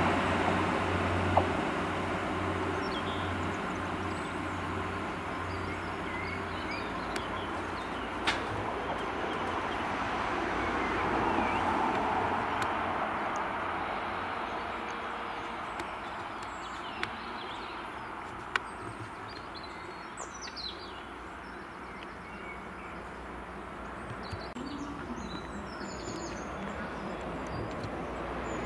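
Class 175 diesel multiple unit running, a low steady engine and rail rumble that fades, swells again about ten to twelve seconds in, then dies away. Small birds chirp over it, with a couple of sharp clicks.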